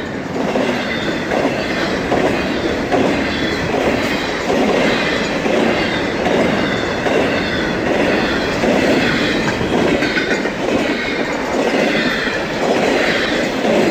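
Cars of an FEC intermodal freight train rolling past close by. The wheels clack over the rail joints in a rhythm that repeats about once a second, over a steady rumble.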